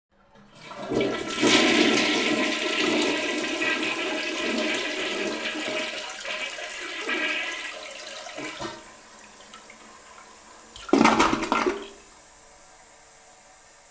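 Toilet flushing: a loud rush of water swells within the first second or two and slowly fades over several seconds. About eleven seconds in comes a second brief loud gush, then only a faint steady hiss.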